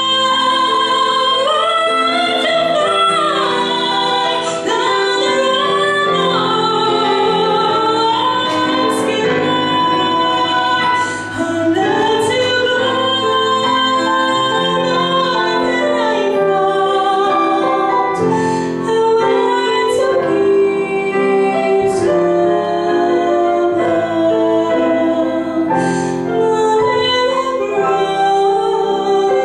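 A woman sings a slow song into a microphone, accompanied by chords on a digital piano; her voice holds long notes and slides between pitches.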